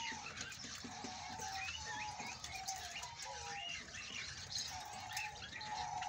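Budgerigars chattering: a steady run of quick, rising and falling chirps and warbles with occasional sharp clicks.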